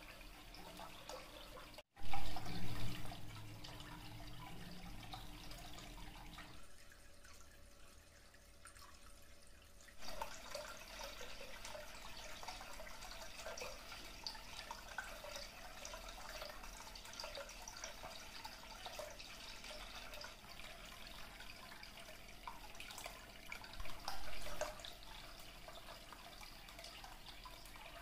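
Small cement tabletop water fountain running: a thin stream trickling from a spout and splashing into its basin and bowl. A brief louder low-pitched knock comes about two seconds in, with a smaller one near the end.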